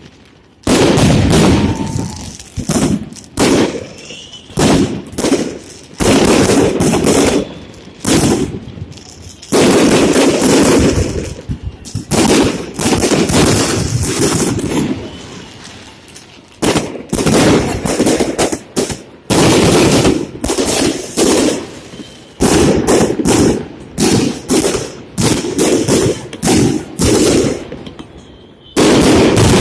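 Fireworks salute: shells bursting in rapid, irregular volleys of loud bangs, each trailing off in a rumble, with a few brief lulls.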